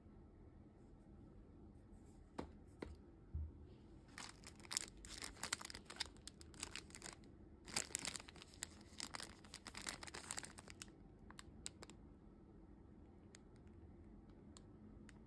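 Clear plastic bakery wrapper around a canelé crinkling as it is handled, in two bouts of quick crackling, the first about four seconds in and the second about eight seconds in, with a few faint ticks afterwards.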